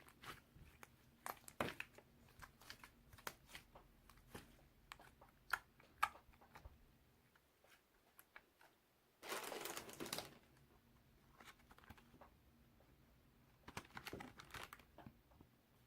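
Faint handling noises: scattered small clicks and taps, then two short bursts of crinkling rustle about nine and fourteen seconds in.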